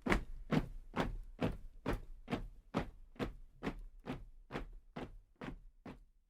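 A steady series of sharp thuds at about two a second, like a marching beat, growing gradually fainter and dying away near the end.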